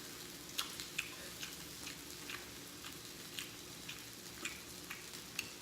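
Wet mouth smacking and clicking of a person chewing food close to the microphone, about two smacks a second at an uneven pace.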